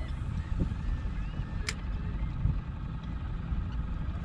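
Steady low rumble of wind and engine on an open fishing boat, with seabirds calling faintly over the water and a single sharp click about one and a half seconds in.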